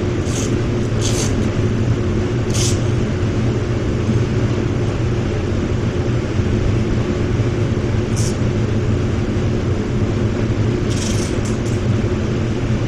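Paint booth ventilation running with a loud, steady hum. Over it come a few short crackles from masking tape being pulled off the roll and pressed onto plastic sheeting, heard about half a second, one, two and a half, eight and eleven seconds in.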